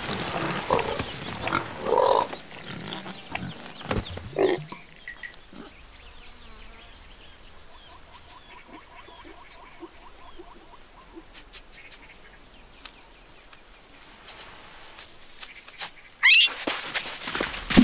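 Cartoon sound effects: animated pig noises in the first few seconds, then a long quiet stretch of faint ambience with a string of small chirps. A sudden loud sound with a rising sweep comes near the end.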